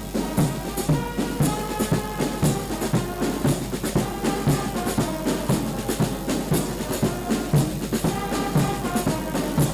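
Band music: a drum beating steadily about twice a second under held, sustained notes.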